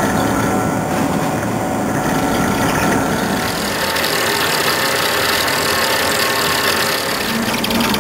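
Hwacheon VT 4500 vertical turning lathe taking a heavy roughing cut, 20 mm deep, in a large SM490A steel ring: the machine runs steadily, with the hiss and grind of the tool cutting and a few held tones.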